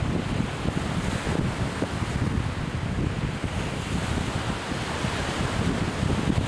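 Strong wind buffeting the microphone with a constant low rumble, over the wash of surf on a beach.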